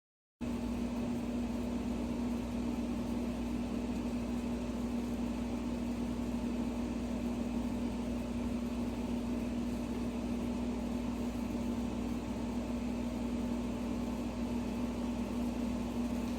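A steady, unchanging machine hum with one low tone and a background hiss. It cuts in abruptly out of dead silence just after the start.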